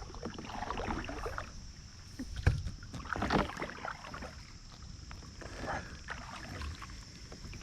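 Water splashing and sloshing around a kayak in three separate bursts, over a low rumble of wind on the microphone.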